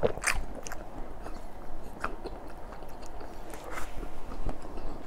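Biting and chewing crispy fried red tilapia, with a few crisp crunches: one right at the first bite, another about two seconds in and another near four seconds.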